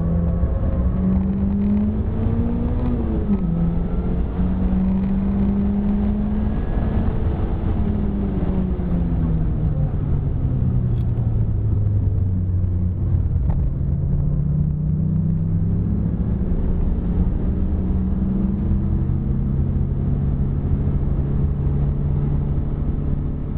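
Mitsubishi Lancer GSR's 4G63 two-litre engine heard from inside the cabin at speed. The note climbs, dips sharply about three seconds in, falls away from about eight to twelve seconds in as the car slows, then runs steadily at lower revs.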